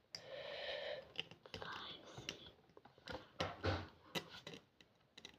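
Faint scattered clicks and scratches of a needle picking at a dalgona honeycomb candy, with a soft breathy whisper in the first second.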